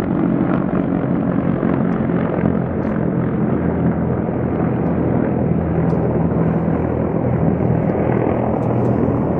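Steady, loud mechanical drone with a low hum underneath, holding level without any breaks.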